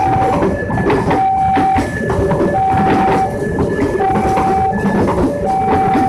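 Plasser & Theurer track maintenance machine working, its engine running loud and steady under a repeating two-tone warning signal that alternates high and low about once every one and a half seconds.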